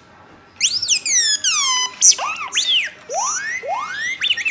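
Sphero R2-D2 toy droid beeping and whistling through its built-in speaker: a rapid string of electronic chirps with falling and rising pitch sweeps, starting about half a second in.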